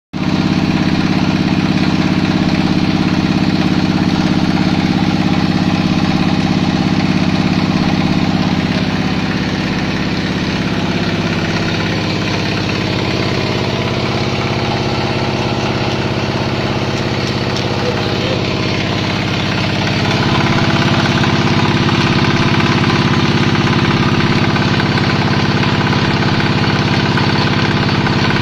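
Vertical pellet press machine running with a steady engine-like drone. The tone shifts about ten seconds in and grows a little louder about twenty seconds in.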